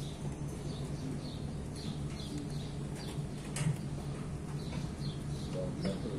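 Small birds chirping over and over above a steady low mechanical hum, with one sharp click about halfway through.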